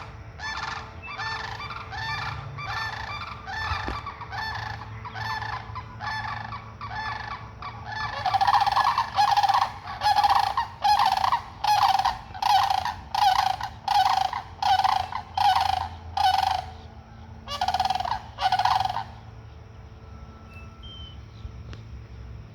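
Sandhill cranes calling in a long series of loud rolling calls, about one and a half a second; the calls grow louder about eight seconds in and stop near the end.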